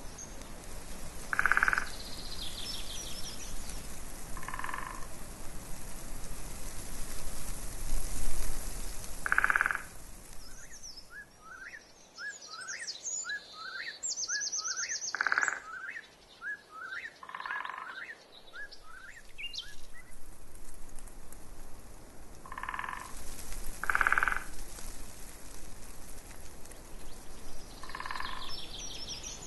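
Frogs calling at irregular intervals of a few seconds, with birds singing: a run of quick rising notes in the middle and high trills now and then.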